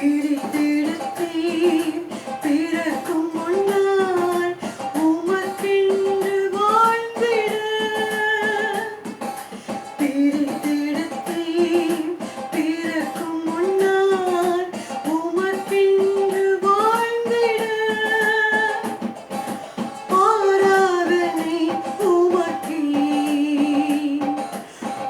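Praise and worship song: one voice singing a gliding melody line over guitar accompaniment.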